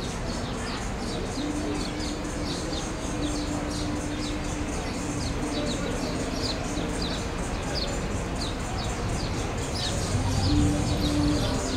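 Small birds chirping in a steady series of short, falling chirps, about two a second, over a haze of background noise. A low steady hum comes and goes.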